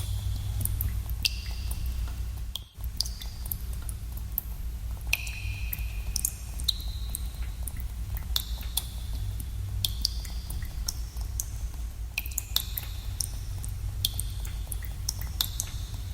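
Water drops falling into pools in a cave, irregular plinks about once or twice a second, each with a short ringing, echoing tone, over a steady low rumble. The whole sound briefly cuts out about three seconds in.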